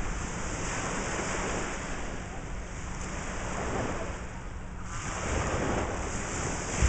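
Small waves washing steadily onto a sandy lake shore, with wind buffeting the microphone. A single low thump comes right near the end.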